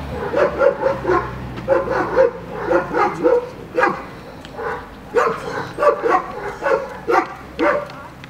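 A dog barking repeatedly in quick, irregular runs, with a short pause about halfway through.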